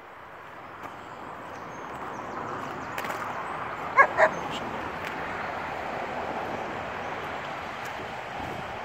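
A dog gives two short barks in quick succession about four seconds in, during a tussle with the other dog over a stick, over a steady hiss of background noise.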